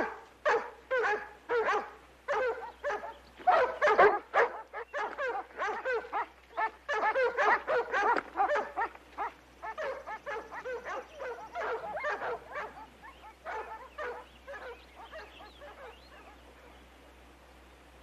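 German shepherd dogs barking rapidly and excitedly, the barks growing fainter as they run off and dying out near the end.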